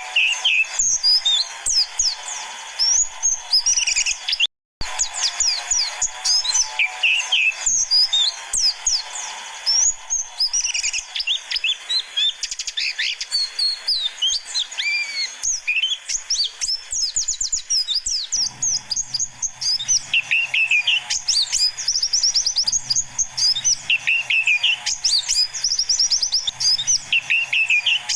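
Pleci (white-eye) birds chirping and twittering rapidly: many short, high calls overlapping densely, as in a lure recording meant to excite wild white-eyes. The sound cuts out briefly about four and a half seconds in.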